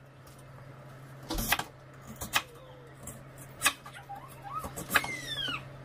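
Kitchen knife slicing through lotus root and striking the cutting board, a handful of sharp chops spaced irregularly about a second apart, over a steady low hum. A brief sliding high tone comes about five seconds in.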